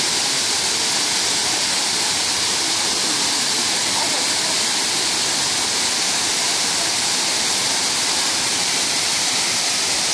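Waterfall pouring, a steady loud rush of falling water.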